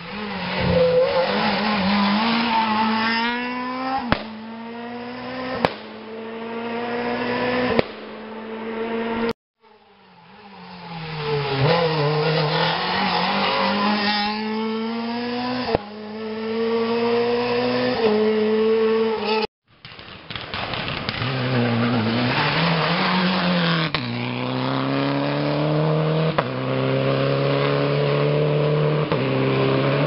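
Rally cars at full throttle on a tarmac special stage, three in turn. Each engine climbs in pitch and drops sharply at every upshift, with a few sharp cracks, and each pass is cut off abruptly.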